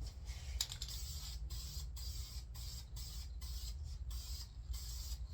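High-temperature spray paint hissing onto an engine block in a run of short passes, broken by brief gaps about twice a second, laying down a light first coat.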